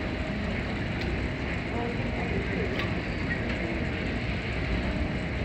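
Airport baggage carousel running: a steady mechanical rumble and rattle from its moving metal plates, with a few faint clicks.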